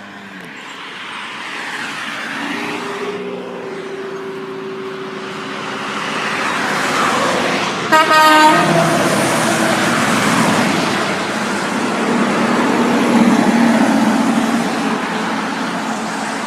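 Two truck horns sounded one after the other, over the rising noise of passing road traffic. The first is a held horn chord that lasts about two seconds, a few seconds in. The second is a short, much louder blast about halfway through.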